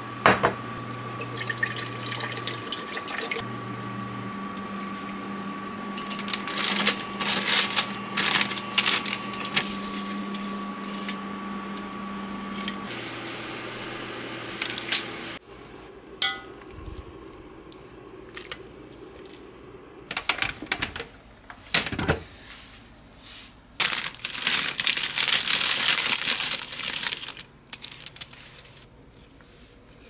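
Kitchen cooking sounds: soju poured from a glass bottle into a pot and cooking handled at the stove, over a steady hum that stops partway through. Later there are a few sharp clicks and a longer stretch of scraping or rustling.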